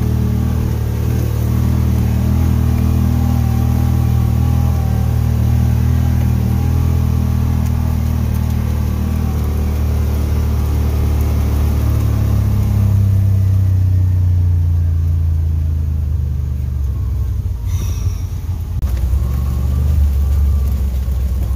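Side-by-side UTV engine running steadily as it drives a rough trail. About two-thirds of the way through the engine eases off and its pitch drops. Near the end there is a brief sharp knock.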